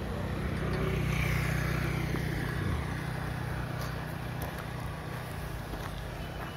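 Motorcycle engine running as it goes by, a steady low hum loudest a second or two in, with a faint falling whine as it passes.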